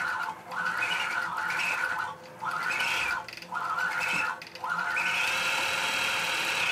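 Gammill Statler computer-guided long-arm quilting machine stitching a pattern. Its motor whine rises and then falls in pitch with each short run of stitches, five short runs, then a longer steady run from about two-thirds of the way in.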